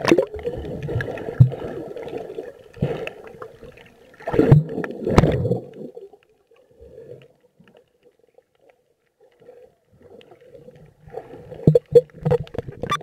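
Seawater sloshing and gurgling around a camera as it dips under the surface, heard muffled from underwater, with several louder sloshes in the first half. It goes much quieter through the middle, and the sloshing picks up again near the end.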